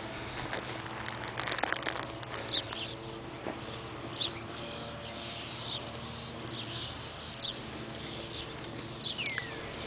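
Outdoor ambience of birds chirping, short calls every second or so, with one falling whistled call near the end, over a faint steady low hum.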